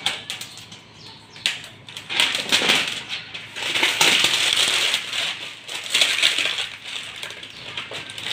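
Plastic shrink-wrap crinkling and tearing as it is cut and pulled off a non-stick tawa. The crackling starts about a second and a half in and comes and goes, loudest about halfway through.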